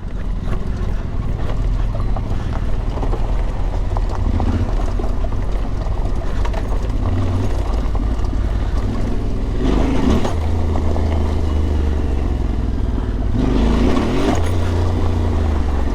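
Yamaha Ténéré 700's parallel-twin engine running at low revs off-road, with the revs rising and falling twice, about ten seconds in and again about fourteen seconds in.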